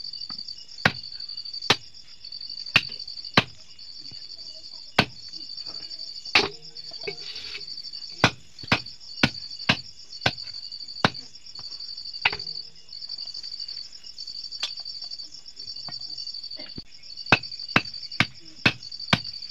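Raw chicken being chopped into pieces with a large knife on a wooden log stump: about eighteen sharp chops at an uneven pace, with a pause of a few seconds past the middle and a quicker run near the end. A steady high-pitched insect chirring runs behind.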